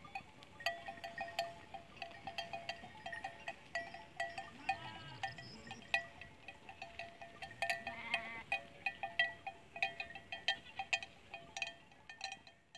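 Small bells on grazing sheep clinking irregularly as the flock moves, with a sheep bleating about five seconds in and again near eight seconds.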